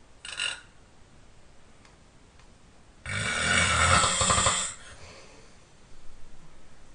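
A person snoring loudly. A short breath sound comes just after the start, then about three seconds in one long rattling snore lasts about a second and a half, followed by quieter breathing.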